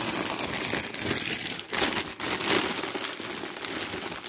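Package wrapping crinkling and rustling as it is handled and pulled open by hand, with a couple of sharper crackles about two seconds in.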